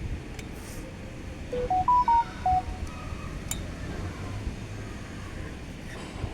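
A quick run of five short electronic beeps at different pitches, rising and then falling, about a second and a half in, over steady wind and outdoor background noise.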